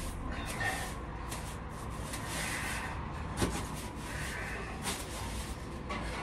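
Broom sweeping a floor: scratchy swishing strokes, with one sharp knock about three and a half seconds in.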